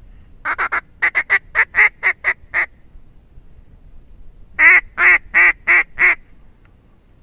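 Duck quacks: a quick run of about eleven short quacks, then, after a pause of about two seconds, five louder, slower quacks.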